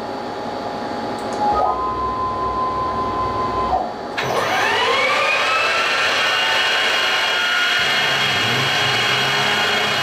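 Small CNC mill: for about two seconds a steady one-pitch whine sounds over a hiss as the table moves into position. About four seconds in, the spindle whines quickly up to speed, then runs steadily at 3000 RPM as the quarter-inch two-flute end mill cuts into the Corian panel.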